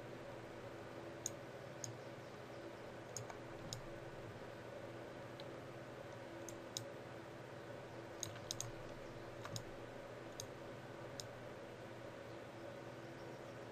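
Computer mouse and keyboard clicks, about a dozen short sharp clicks at irregular intervals, over a faint steady hum.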